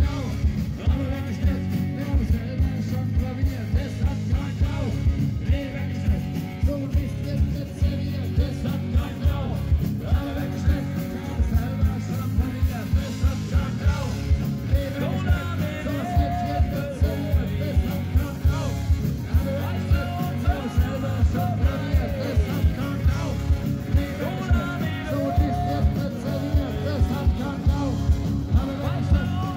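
Upbeat party rock music with singing over a steady, fast drum beat.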